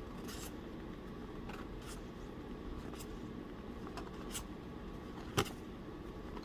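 Tarot cards being flipped through one at a time, making soft, irregular card slides and flicks. A sharper click comes about five seconds in.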